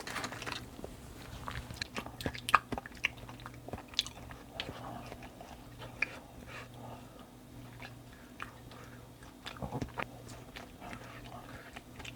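Close-up chewing and crunching of a crunchy snack, in irregular crisp crackles. The crunching is busiest in the first few seconds, softer in the middle, and picks up again near the end.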